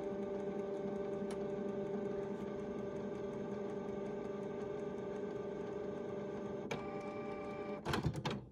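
Canon inkjet printer's internal motor running with a steady whine during its power-down cycle. The pitch changes near the end, followed by a few clicks and clunks as the mechanism stops.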